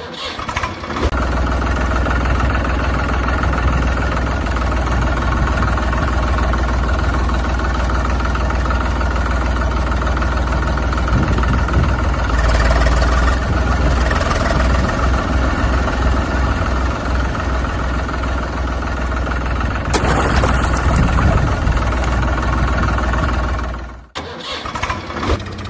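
Heavy diesel engine of the backhoe loader or dump truck running steadily with a deep drone, with stretches of added rattling noise along the way. The sound drops away sharply near the end.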